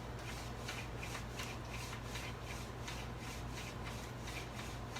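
Summer squash being slid back and forth across a mandoline blade, a steady run of short rasping slicing strokes, about two to three a second.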